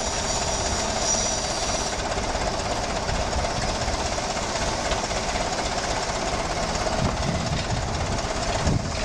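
Old Clark forklift's engine running steadily while it holds a marble sculpture on its forks.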